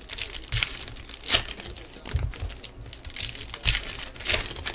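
Trading-card pack wrappers crinkling and being torn open by hand, in irregular crackles with several louder rips, along with a few dull bumps of handling.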